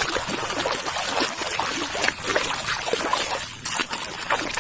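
Water trickling and splashing as a muddy plastic toy is washed, with irregular sloshes and patters.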